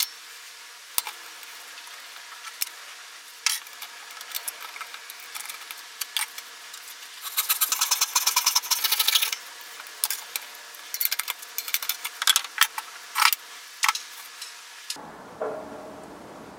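Small wooden pieces and hand tools handled at a workbench: scattered clicks and knocks, with about two seconds of fast, rapid scraping strokes around the middle.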